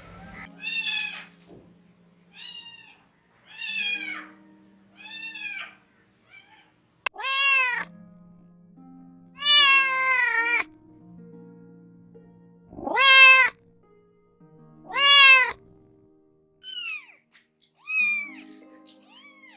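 A cat meowing again and again, about a dozen separate meows, each rising and falling in pitch. The loudest and longest come in the middle, with soft background music of held notes beneath.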